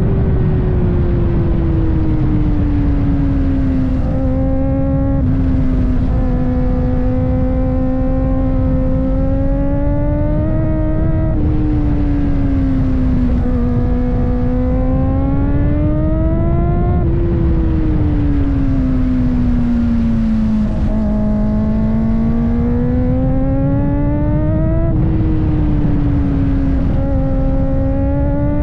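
Kawasaki ZX-4RR's 399 cc inline-four running at high revs under way, its note rising and falling slowly with the throttle, with a few brief dips where it changes pitch abruptly. Heavy wind rumble on the camera's microphone lies under it.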